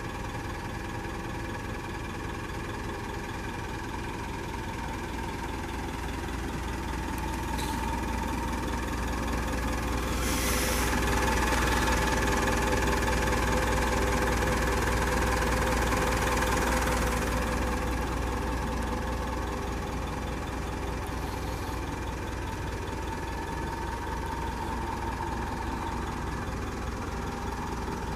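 Mitsubishi L200 pickup's 2.5-litre four-cylinder diesel engine idling steadily. It grows louder for about ten seconds through the middle, with a brief hiss about ten seconds in.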